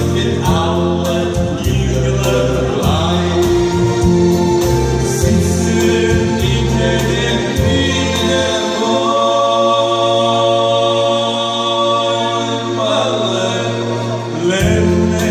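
Live Jewish music: a male singer and a male choir singing with electronic keyboard accompaniment. About nine seconds in, the beat drops out under a long held chord, then picks up again near the end.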